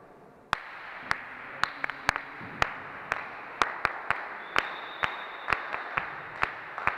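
Hand clapping that starts suddenly about half a second in: a steady patter of many hands, with louder single claps about twice a second.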